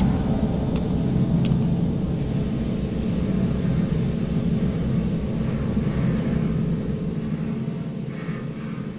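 Steady low rumble with a hum in it, easing slightly near the end.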